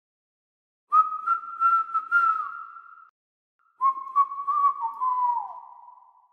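A person whistling a simple melody in two short phrases, each ending with a downward slide in pitch, the second trailing off lower. Light clicks mark the note starts.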